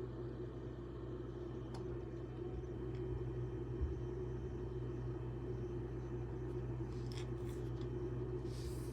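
Faint clicks and scraping of a screwdriver turning the adjusting screw of a water heater's lower thermostat, over a steady low hum.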